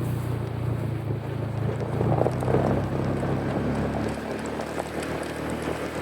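An engine running steadily, its note shifting about four seconds in, with wind noise on the microphone.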